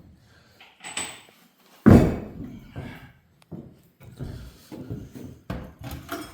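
Oil drain pan being pulled down from a high spot and handled: a sharp knock about a second in, a heavy thump about two seconds in, then a run of smaller knocks and clatters.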